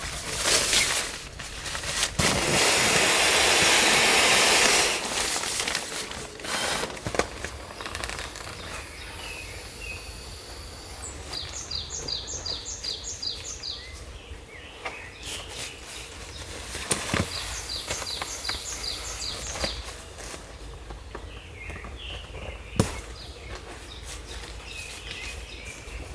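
Outdoor camp sounds: a loud hiss lasting about three seconds near the start, then scattered clicks and knocks, with a bird's rapid high chirping trill heard twice in the middle.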